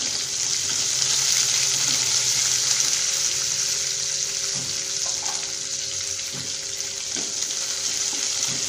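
Sliced onions frying in hot oil with whole spices in a nonstick pan: a steady sizzling hiss, stirred with a wooden spatula that gives a few light taps in the second half.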